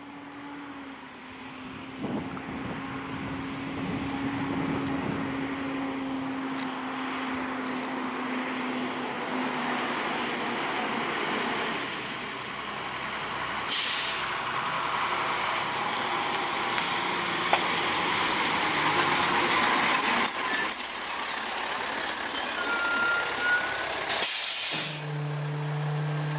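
Rear-loader garbage truck approaching and pulling up, its diesel engine growing louder as it nears. A short loud air-brake hiss comes about halfway through; the brakes squeal as it slows, and a second loud air-brake hiss near the end as it stops.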